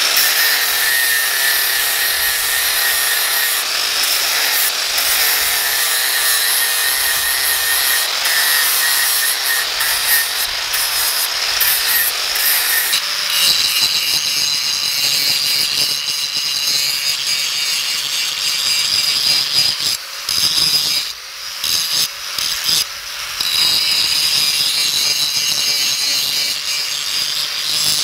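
Angle grinder with a 60-grit flap disc grinding a steel sledgehammer head: a steady, loud grinding hiss over the motor's high whine, dipping briefly a few times past the middle.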